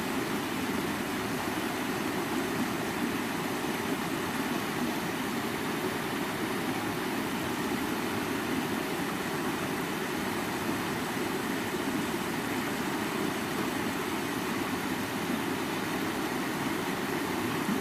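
A river rushing over rocks: a steady, unbroken wash of flowing water with a deep rumble under it.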